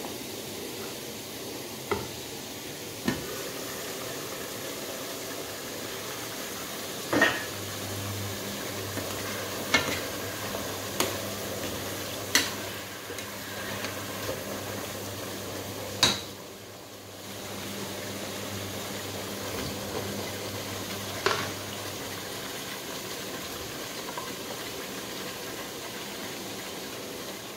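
Cooking pots simmering on an electric stove, giving a steady bubbling hiss. A wooden spoon stirs, and there are several sharp knocks of utensils against the pots.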